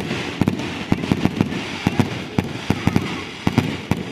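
Fireworks finale barrage: a rapid, irregular run of sharp reports, several a second, over a continuous crackle of bursting shells.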